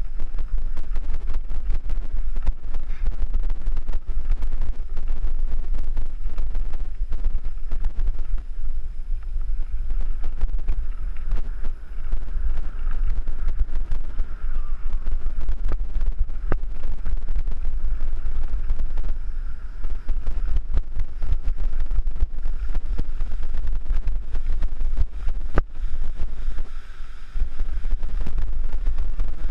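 Wind buffeting a helmet-mounted action camera's microphone on a fast mountain-bike descent, with a steady low rumble and frequent short knocks and rattles from the tyres and bike running over loose gravel.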